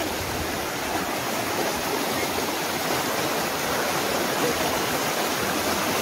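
Shallow forest river rushing over rocks: a steady, even rush of running water.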